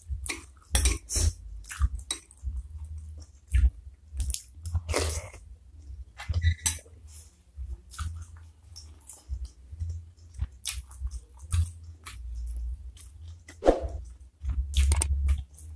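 A person chewing and biting a mouthful of bakso (beef meatball soup), with irregular short smacks and crunches.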